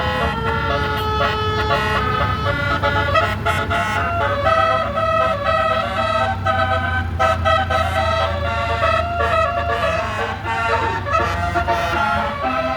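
Basuri 'telolet' multi-tone musical air horn on a tour bus playing a melody: several tones sound together and change in quick steps, with only brief gaps. A steady low engine rumble runs underneath.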